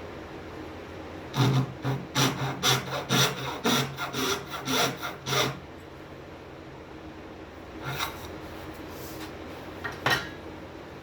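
Hand sanding of plywood edges: a burst of about ten quick back-and-forth rubbing strokes, then two single strokes near the end.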